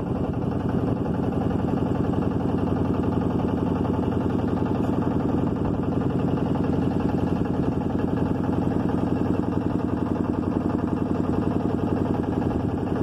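Engine of a river motorboat running steadily at cruising speed, a rapid, even chugging.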